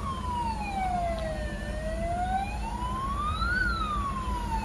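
Emergency vehicle siren wailing continuously in a slow cycle. The pitch falls for about a second and a half, rises to a peak about three and a half seconds in, then falls again, over a steady low rumble.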